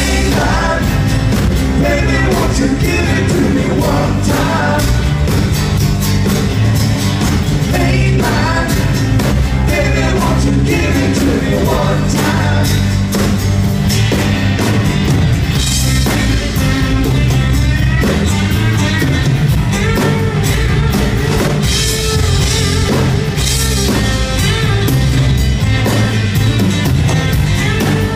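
Live rock band playing a song in an acoustic set: acoustic guitars strumming over bass guitar and a drum kit, with a lead singer. Heard from the audience, loud and continuous.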